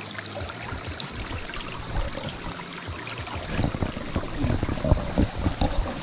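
Stream water running and trickling steadily over rocks, with irregular low thumps joining in from about halfway through.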